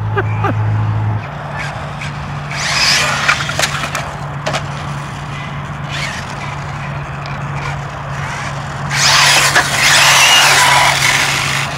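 Arrma Typhon 1/8-scale brushless electric RC buggy driving on asphalt: tyre hiss and motor whine swell as it speeds past about three seconds in, then again, louder and longer, from about nine seconds in. A steady low hum runs underneath.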